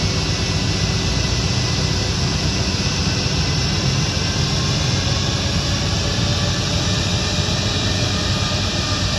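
Airbus A319 jet engines running at low taxi power: a steady, loud rumble with several thin, steady whining tones over it.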